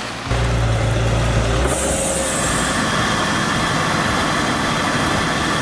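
Heavy machine engine running steadily, with a strong deep hum for the first second or so and a steady whine throughout.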